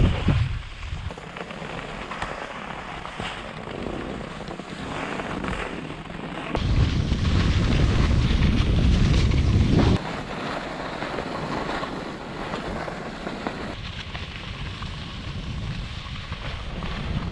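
Wind buffeting the microphone of a pole-mounted action camera while skiing downhill, over the hiss of skis sliding on snow. The rumble of the wind grows much louder about six and a half seconds in and drops back suddenly about ten seconds in.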